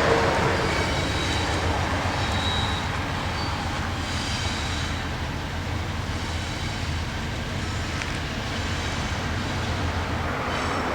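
Diesel freight train rolling past: a steady low rumble of locomotive engines and wheels on the rails, with a few faint high squeals.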